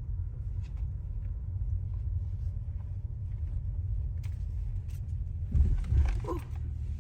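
Steady low rumble of a car in motion, heard from inside the cabin, with a few faint, indistinct voice sounds near the end.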